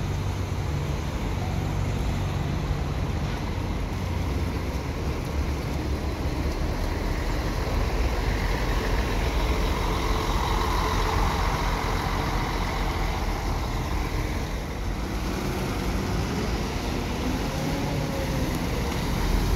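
Intercity coach's diesel engine running as the coach pulls out and drives past close by. Its sound swells about halfway through and then fades, over a steady low rumble.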